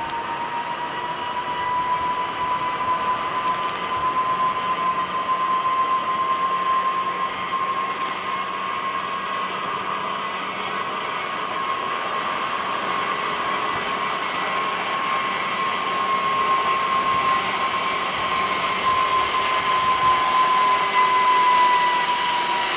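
Zipline trolley pulleys running along the steel cable: a steady high whine over a hiss, slowly getting louder, its pitch dropping a little near the end.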